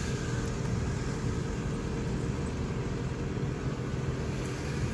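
Car engine and tyre noise heard from inside the cabin, driving slowly on a dirt road: a steady low running sound with no sudden changes.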